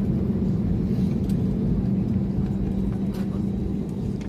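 Steady low cabin rumble inside an Airbus A321neo on the ground just after landing, with a constant hum from the engines and air systems and a few faint ticks.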